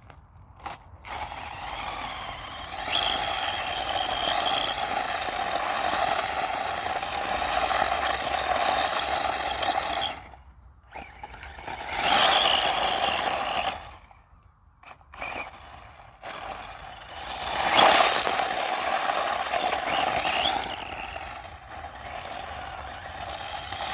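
Brushless electric RC car driving and skidding, its tyres scrubbing across the ground with a faint motor whine, in runs of several seconds broken by two short pauses.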